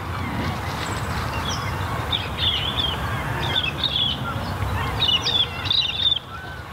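Several small birds chirping and twittering in quick squiggly calls over a steady low outdoor rumble.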